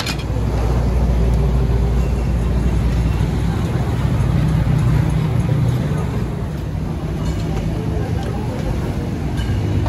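Street traffic with an engine running close by: a steady low hum that eases off about six seconds in. Faint metal clinks near the end.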